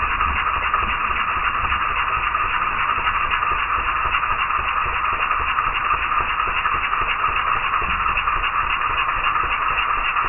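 Banknote counting machine running steadily, a dense rapid flutter of paper notes being riffled through the rollers, with a low rumble from the machine underneath.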